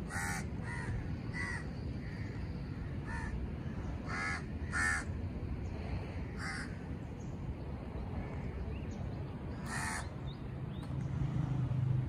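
A crow cawing, about eight short calls spaced irregularly, with a pair close together about four seconds in and one last call near ten seconds, over steady low background noise.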